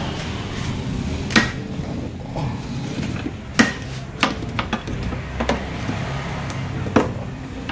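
Sharp, irregular clicks and knocks, about seven in all, as a car bumper is levered with a small hooked steel pry tool and pushed into its fitting against the body.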